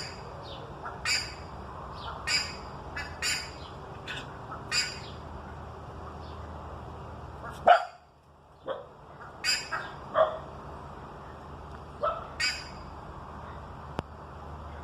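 Buff-necked ibis (curicaca) giving loud, harsh, bark-like calls, about a dozen short calls in irregular bursts.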